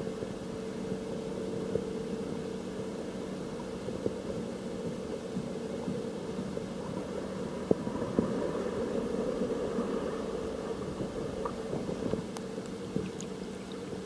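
Steady low mechanical drone holding a couple of tones, heard through water, with scattered clicks and crackles.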